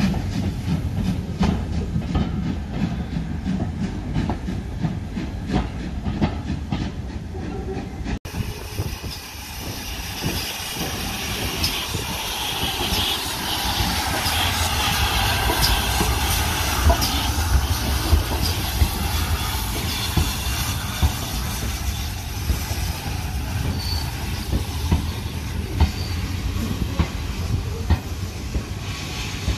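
Heritage train passing slowly: carriage wheels clicking over rail joints with a low rumble. After a break about eight seconds in, a Great Western steam tank locomotive draws by with a swelling hiss of steam, and its coaches follow, clicking past.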